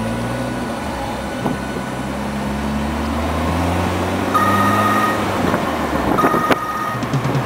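Electronic music intro: sustained low synthesizer notes that shift to new pitches every second or two, with a higher synth tone coming in about four seconds in.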